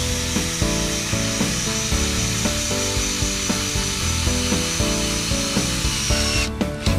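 Background music with a steady beat over a cordless drill driving a screw into a timber post, its whirring hiss cutting off about six and a half seconds in.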